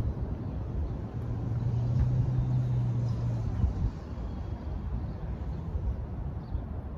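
Outdoor background rumble at a lakeshore, with a steady low hum from about one second in until nearly four seconds in.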